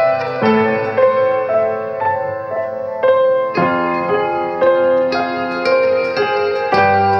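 Background piano music, a melody of notes struck about twice a second over held lower notes.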